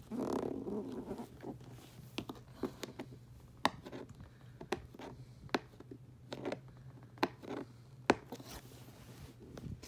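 Cardboard toy packaging being handled and folded, giving sharp, irregular clicks and taps, with a denser scrape in the first second.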